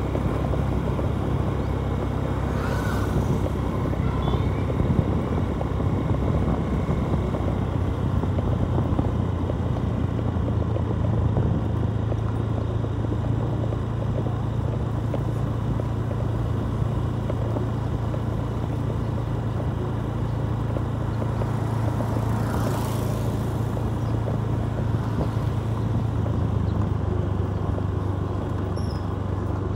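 Motorcycle engine running at a steady cruise, its hum holding an even pitch over road and wind noise. Two brief rushing sounds come about 3 seconds and 23 seconds in.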